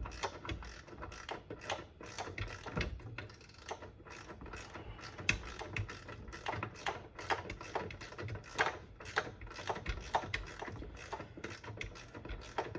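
Hand ratchet clicking in short irregular runs as nuts on a headlight motor's mounting bolts are turned down by hand to just snug.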